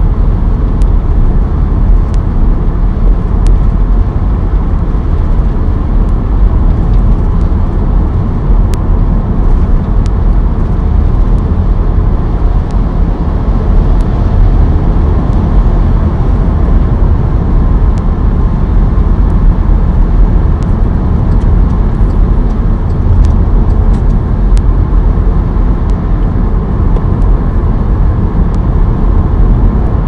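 Steady low road rumble of a car cruising at speed on a dual carriageway, tyre and engine noise heard from inside the car, with a few faint ticks scattered through it.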